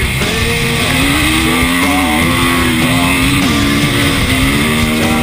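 Dirt bike engine running under way, its note dipping and rising several times as the throttle is eased and opened again.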